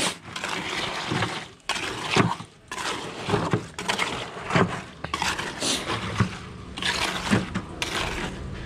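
Small steel trowel scraping and pushing through wet, gravelly concrete in irregular strokes with brief pauses.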